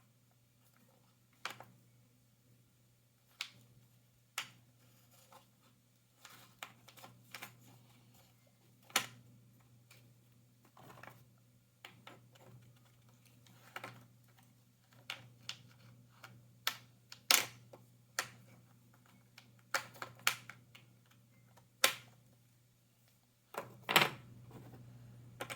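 Jigsaw puzzle pieces clicking and tapping against each other and the tabletop as they are handled and fitted together. The taps are irregular, sometimes several close together, with a few sharper knocks.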